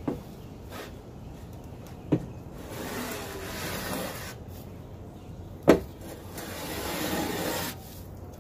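Steel shovel scraping chicken droppings and litter across the coop floor in two long strokes, with three sharp knocks of the blade against the floor, the loudest about halfway through.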